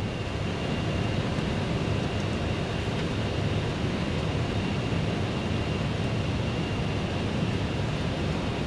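Steady rush of air and engine noise inside an MD-11 jet's cockpit on final approach, with a faint steady high whine.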